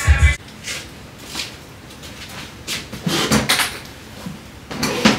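Several short hissing spritzes from a pump-spray bottle of makeup setting spray, each a brief burst a second or more apart, with a few small clicks of handling.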